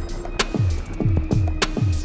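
Background music with a fast, steady kick-drum beat and sharp percussion hits over held tones.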